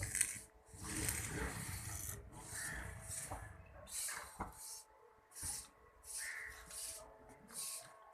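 Repeated scraping or rasping strokes, roughly one a second and unevenly spaced, like a tool or brush worked over a rough surface.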